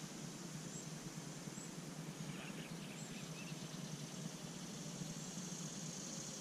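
Faint, steady high whine of an RC jet's twin electric ducted fans in flight, rising a little near the end, over a steady outdoor hiss. A few faint bird chirps come about two and a half to three and a half seconds in.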